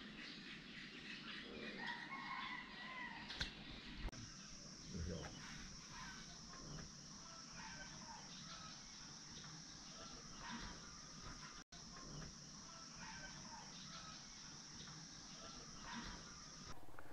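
Faint outdoor ambience of birds chirping and calling, among them chickens. A steady high-pitched whine comes in suddenly about four seconds in and cuts off just before the end.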